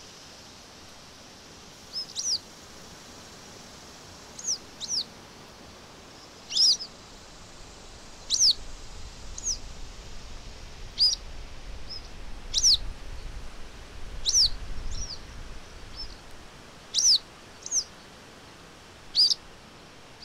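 A songbird chirping: about sixteen short, sharp downward-sweeping chirps, singly or in quick pairs, every second or two, over a steady background hiss, with a faint low rumble through the middle.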